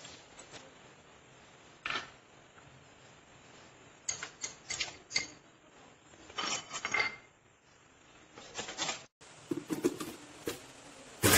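A stainless-steel mixer-grinder jar being handled: scattered metallic clinks and knocks in short clusters, with quiet between.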